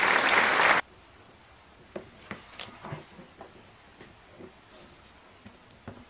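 Applause that cuts off suddenly under a second in. Then faint scattered taps and scrapes of a cardboard box being handled and opened on a table.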